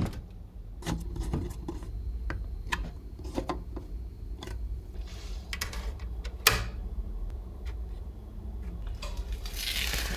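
Scattered light clicks and taps with short bursts of rubbing and scraping, as computer parts are handled and fitted, with one sharper click about six and a half seconds in.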